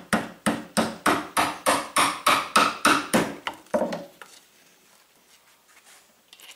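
Rubber mallet striking a wooden board in a fast run of about fifteen blows, some four a second, to knock the board free of its old nails. The blows stop about four seconds in, leaving only faint small handling sounds.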